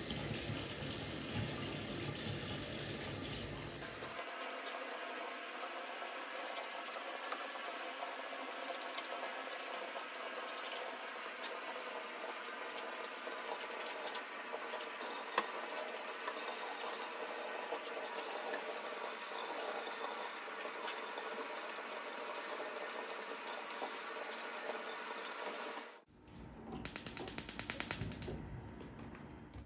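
Water running steadily from a tap into a sink. Near the end it stops abruptly and gives way to a different sound with a quick run of ticks.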